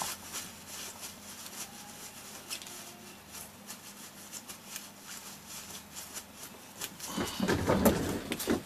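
Faint scattered clicks and light knocks of things being handled on a workbench, with a louder stretch of rustling and handling near the end.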